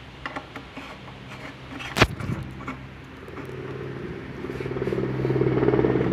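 Black iron pipe fittings handled and fitted together by hand: a few light clicks, then one sharp metal knock about two seconds in. A steady engine-like hum builds up in the background from about halfway through and grows louder toward the end.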